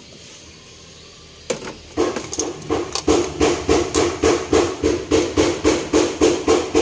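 Steady hammering that begins about a second and a half in, with even blows about three a second.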